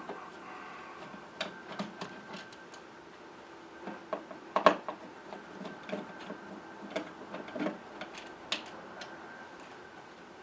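Irregular small clicks and taps of a screwdriver working the screws out of a plastic Decora switch cover plate and the plate being handled, with the loudest knock about four and a half seconds in.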